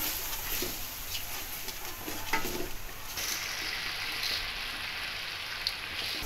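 Onion-and-spice masala sizzling in oil in an aluminium pot, stirred and scraped with a wooden spoon. About three seconds in, the sizzle changes as raw rice and split lentils are dropped into the pot by hand and stirred.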